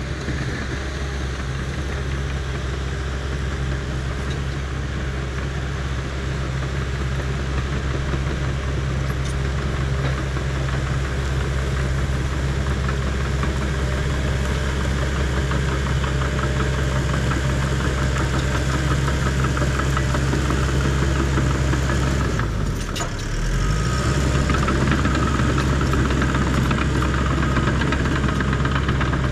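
Heavy diesel engine of a tracked land-clearing machine running steadily under work while raking. It dips briefly about 23 seconds in, then comes back slightly louder.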